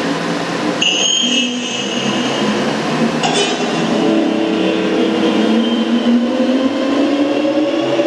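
Moving-head stage lights running, their fans whirring and their motors whining as the heads sweep, with a whine that rises slowly in pitch through the second half.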